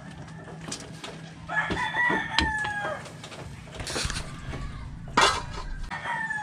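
A rooster crows: one long call starting about a second and a half in, and another crow beginning near the end. A few sharp knocks sound in between, the loudest about five seconds in.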